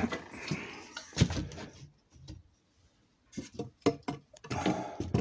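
Handling noise from a hand-held phone: a few short knocks and clicks with rustling, and a near-quiet stretch in the middle.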